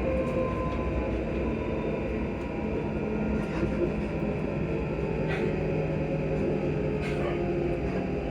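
ScotRail electric train's traction motors humming with several steady tones over the rumble of the wheels heard from inside the carriage. The upper tone sinks slightly in pitch in the first second, and a few faint clicks come through.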